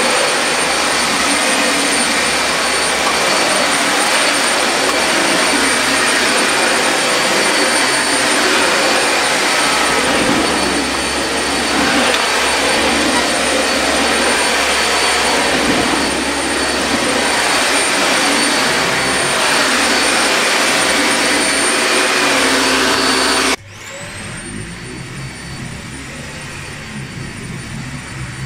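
Dyson Animal Ball 2 upright vacuum cleaner running on carpet: a loud, steady rush of air with a high motor whine. About 23 seconds in, the sound cuts suddenly to a much quieter recording of the vacuum running.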